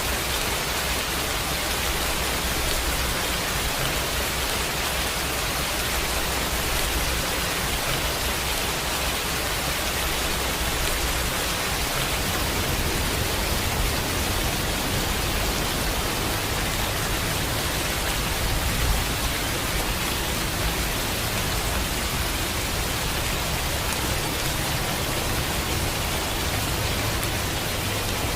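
Steady, even hiss of falling water, with no single drops, calls or other sounds standing out.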